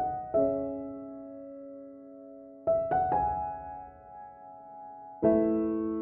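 Background piano music: slow chords, each struck and left to ring and fade, with a new chord every two to three seconds.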